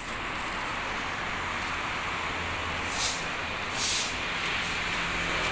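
Steady hum of city street traffic, with two short hisses about three and four seconds in.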